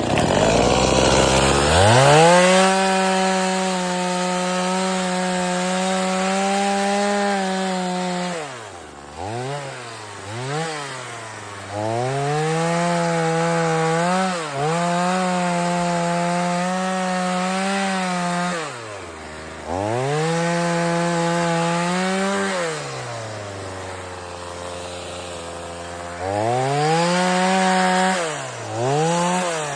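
Two-stroke chainsaw cutting wood at full throttle in long runs, dropping back to idle three times between cuts, with quick blips of the throttle about ten seconds in and near the end.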